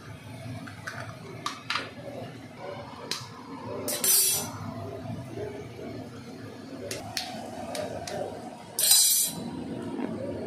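Eggs being cracked on the rim of a bowl: a run of sharp taps and clinks, with two louder bursts about four seconds in and near the end.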